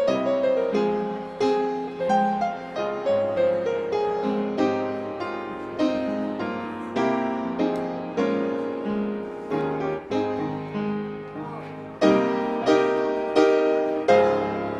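Upright piano playing a hymn-like piece: chords and a melody struck note by note, each fading before the next, with louder chords from about twelve seconds in.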